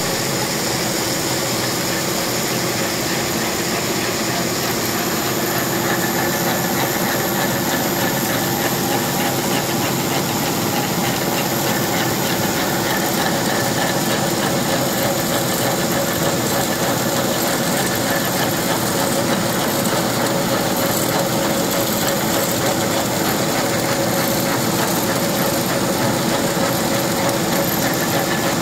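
Textile spinning-mill machinery running, with ring spinning frames at work: a loud, steady whirring din with several constant tones running through it and no change.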